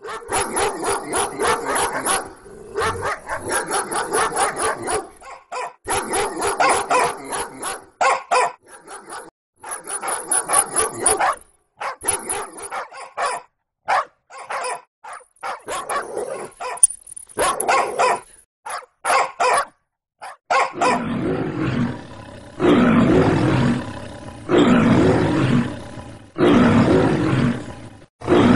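Children's voices imitating a dog fight and a lion: rapid barking and growling calls, then, from about two-thirds of the way in, a series of long, loud roars.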